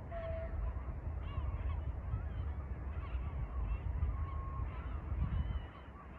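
A flock of waterbirds on the lake, many short calls overlapping, over a steady low rumble. The calls ease off near the end.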